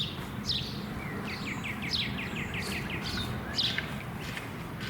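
Small birds calling: several short, high, downward-sweeping chirps, and about a second in a quick trill of about ten repeated notes. A steady low background rumble runs underneath.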